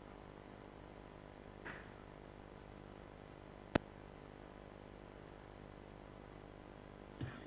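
Faint steady hum of room tone, with one sharp click about four seconds in and a couple of soft knocks near the end.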